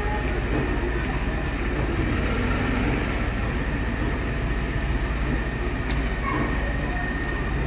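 Fire engine's motor running with a steady low rumble; a faint steady whine joins about five seconds in. People's voices are faintly heard around it.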